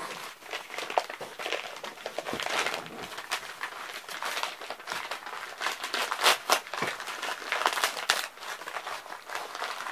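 Crinkling and rustling of a USPS mailing envelope and the wrapping inside it being pulled and torn open by hand, with irregular crackles throughout.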